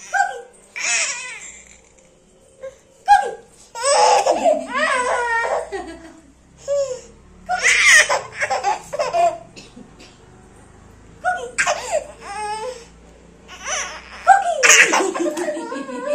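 A baby laughing in several bursts with short pauses between.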